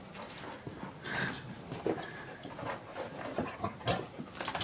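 A dog panting quietly, with scattered small noises.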